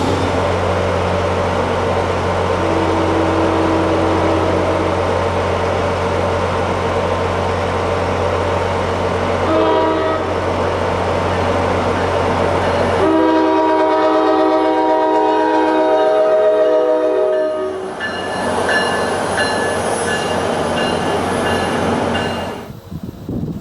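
Diesel locomotive passing with its engine and wheels rumbling steadily, a short toot of its Nathan K5LA five-chime air horn about ten seconds in, then one long horn blast of about five seconds. Loud rushing train noise follows, and the sound cuts off abruptly near the end.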